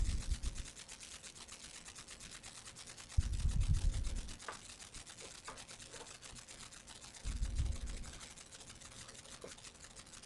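Faint background hiss with a fine, rapid crackle, broken twice by a low muffled rumble of about a second, once about three seconds in and again about seven seconds in.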